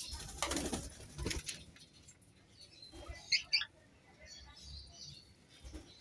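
Indian ringneck parakeets fluttering their wings around a perch for about the first second and a half, then two short, sharp calls in quick succession a little past halfway.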